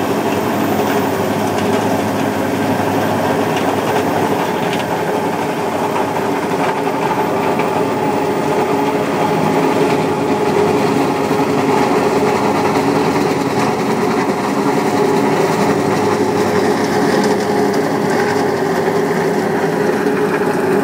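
Tractor engine running steadily under load, driving an FAE stone crusher whose rotor clatters continuously as it crushes the stones of a farm track.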